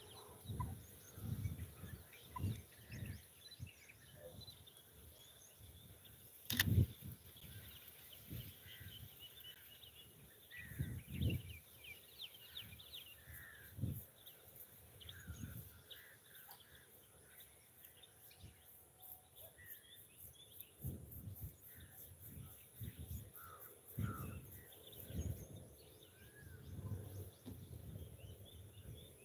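Birds chirping and calling, with frequent low bumps on the microphone and one sharp click about seven seconds in.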